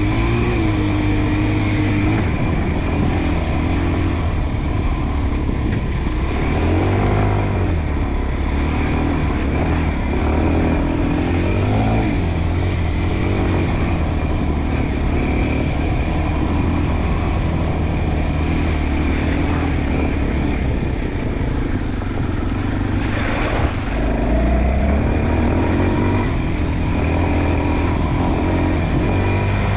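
Enduro dirt bike engine running under way, its revs rising and falling as it is ridden over the trail.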